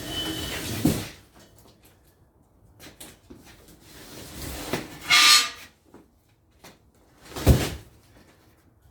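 Heavy boxed generator being moved off a truck: a short scraping rush about five seconds in, then one heavy thud about two seconds later.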